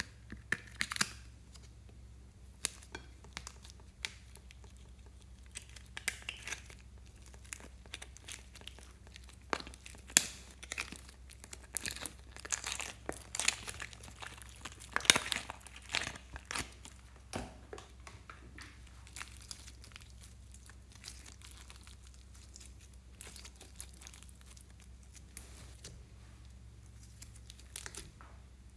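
A thin plastic slime container being flexed and squeezed, its walls crinkling and crackling, as sticky slime peels away from the plastic. The crackles and clicks come irregularly and are busiest in the middle.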